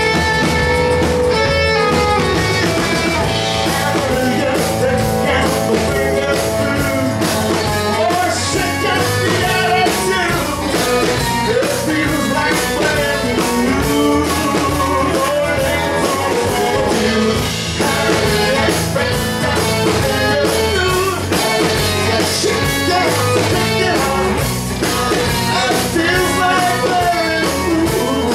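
A live pop-rock band: a male lead singer sings over strummed acoustic guitar, electric guitar and keyboard, his vocal coming in a few seconds in.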